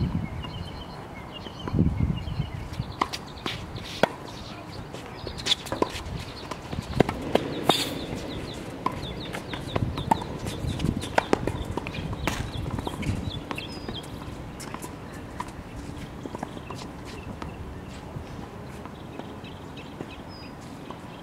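Tennis balls being struck by rackets and bouncing on a hard court during a rally: a string of sharp knocks at irregular intervals that thins out near the end. Birds chirp in the background.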